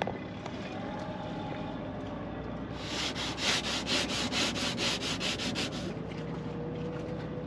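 Hand-sanding of teak trim with sandpaper: a quick run of back-and-forth rubbing strokes, about five or six a second, starting about three seconds in and easing off a little past halfway.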